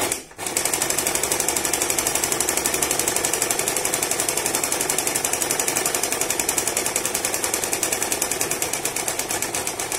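Usha Stitch Queen electric sewing machine running steadily at speed, its needle mechanism clattering at about ten stitches a second as it sews a close zigzag satin stitch. It starts about half a second in and stops right at the end.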